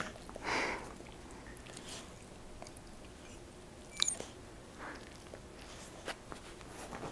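Dog chewing a treat: a few scattered crunches and sharp clicks, the first and longest about half a second in.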